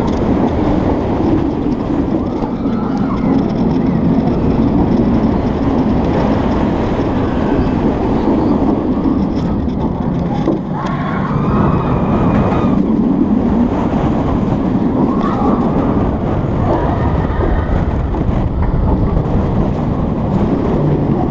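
B&M wing coaster train running on its steel track at speed, a steady loud rumble of wheels mixed with wind on the front-row microphone, dipping briefly about halfway.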